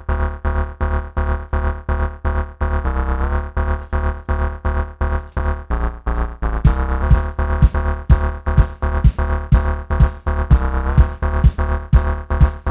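Instrumental intro of an indietronica band track: a chopped, pulsing synth chord pattern over heavy bass, about four pulses a second, joined by a driving kick drum beat from about six and a half seconds in.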